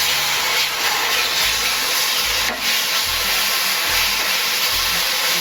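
Steady hiss of frying in a pan as grated robusta banana cooks in a hot mix of coconut, jaggery and ghee, with a few low knocks.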